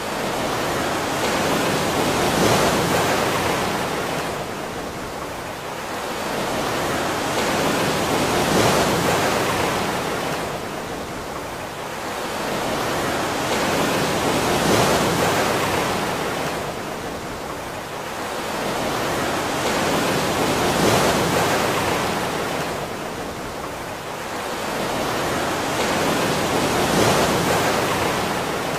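Ocean surf: a rushing wash of waves that swells and ebbs evenly, about five times, roughly every six seconds.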